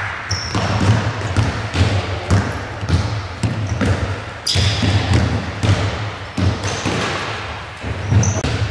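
A basketball bouncing repeatedly on a wooden gym floor, sharp knocks echoing around the hall, with a few short high squeaks from sneakers.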